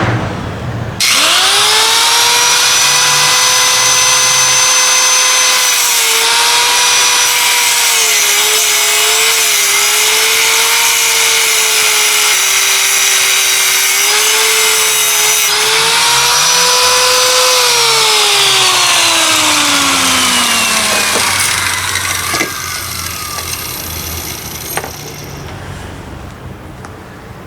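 Electric power tool motor whining at high speed, its pitch dipping now and then as it takes load, then winding down once switched off.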